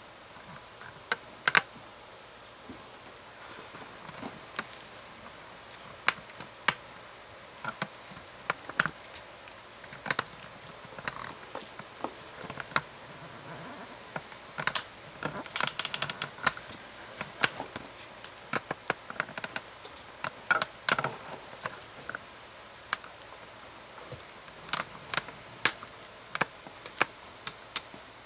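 Hermann's tortoises biting and tearing at food: irregular crisp clicks and crunches, with a quick run of them about halfway through.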